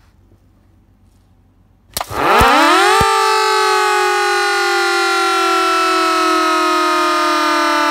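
Salvaged Federal Model 78 dual-tone electromechanical siren starting up about two seconds in with a click, winding up quickly in pitch for about a second, then after a second click holding a loud wail that slowly falls in pitch as it coasts down.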